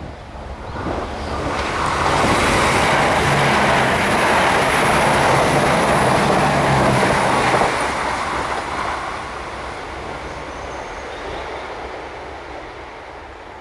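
Six-car Irish Rail 22000 class InterCity diesel multiple unit passing close by: the drone of its diesel engines under the rumble of wheels on the rails. It builds up over about two seconds, stays loud for several seconds, then fades as the train draws away.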